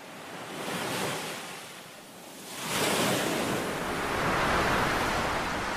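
Ocean surf: waves washing in, swelling about a second in, easing off, then a louder, longer wash from about three seconds in.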